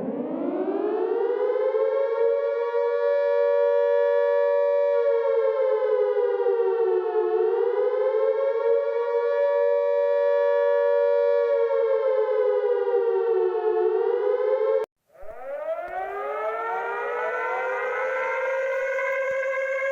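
Civil-defence siren of a UK emergency alarm winding up to a steady wail, its pitch dipping and rising back twice, then cutting off suddenly about 15 seconds in. After a brief gap a siren winds up again, several rising tones climbing to a steady pitch.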